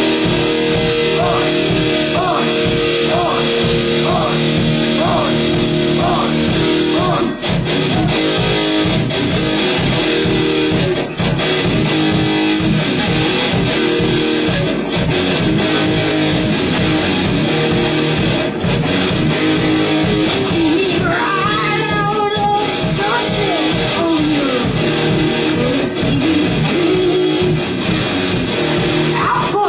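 Live rock band playing loud music with electric guitar and bass guitar.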